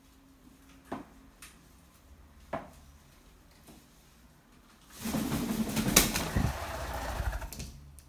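Two short knocks, then a loud flurry of macaw wing flapping for about three seconds as the bird takes off from the sill.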